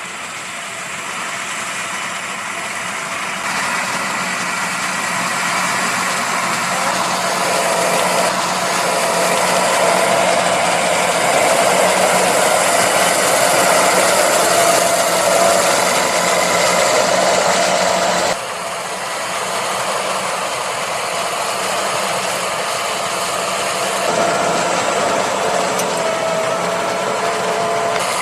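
Fendt Vario 826 tractor's diesel engine running steadily under load while pulling a reversible plough through a field. It grows louder toward the middle, and the sound shifts abruptly a few times.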